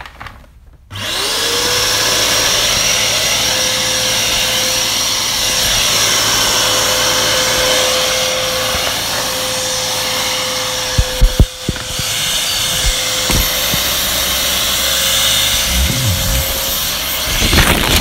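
A vacuum cleaner switches on about a second in: its motor spins up quickly to a steady whine over loud rushing air and keeps running. A few sharp knocks come about halfway through.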